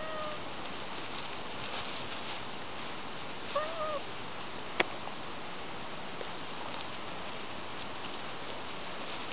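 Tabby cat rolling on gravel and dry leaves: scattered crunching and rustling of pebbles and leaves under its body, over a steady hiss. Two short meows, at the start and about three and a half seconds in, and one sharp click near five seconds.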